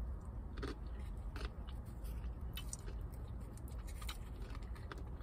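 Close-up chewing of a mouthful of bean dip, with scattered short wet mouth clicks over a low steady background rumble.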